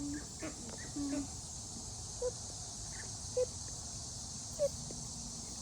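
Steady chorus of crickets and other insects, with a few short low notes roughly a second apart from a voice or an animal.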